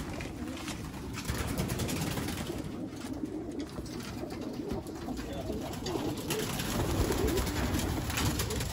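A flock of racing pigeons cooing together in a loft, a dense and continuous chorus of overlapping coos.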